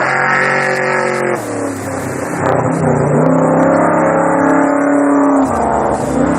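Off-road race vehicle engines running hard, the pitch of one falling over the first second and a half, then another engine note holding and creeping upward before dropping away near the end.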